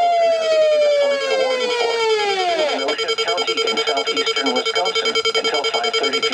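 Several weather alert radios sounding their tornado-warning alarms together. A siren-like tone slides down in pitch over the first few seconds over a steady electronic alert tone, then rapid beeping continues until all the alarms cut off at once near the end.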